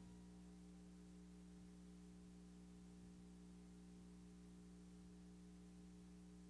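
Near silence: a faint steady hum with a little tape hiss.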